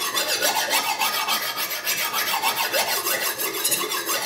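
Kitchen knife blade stroked quickly back and forth along a honing rod in short strokes, section by section along the edge: a rapid, steady metallic scraping.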